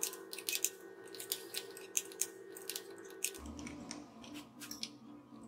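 Quick, irregular clicks and light knocks of metal bolts, tools and the grinder body being handled as an angle grinder is fitted to a plywood mounting plate. The clicks are thick for the first three seconds or so and sparser after.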